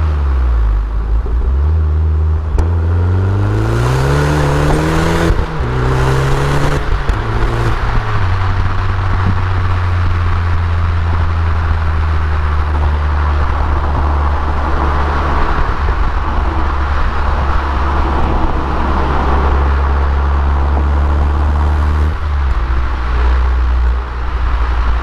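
Stock Abarth Punto Evo EsseEsse with its turbocharged 1.4 four-cylinder and original Garrett GT1446 turbo, accelerating: the engine note rises for about four seconds, breaks at a gear change about five seconds in, rises briefly again, then settles into a steady low drone at constant speed. There is a short dip in the note near the end.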